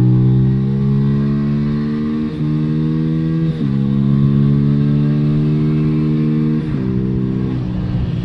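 Beta RR 125 four-stroke single-cylinder engine running loud with an open exhaust (no dB killer) under riding load. The engine note holds high and climbs slowly, with short dips in pitch about two, three and a half and near seven seconds in.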